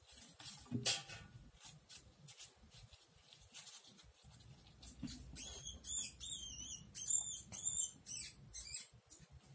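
Newborn rat pinky squeaking in a rapid series of high, wavering squeaks as it is seized by a corn snake, after several seconds of faint clicks and rustling.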